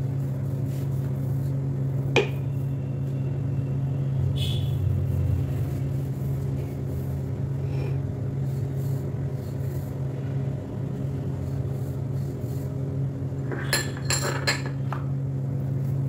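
Wooden rolling pin rolling out paratha dough on a stone rolling board over a steady mechanical hum; a sharp click about two seconds in and a quick run of clinks near the end.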